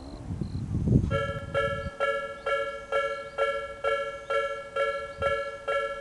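A Japanese railway level-crossing alarm starts about a second in, ringing its electronic bell chime over and over at a little over two strikes a second. The crossing has activated to warn of an approaching train. A low rumble fills the first two seconds.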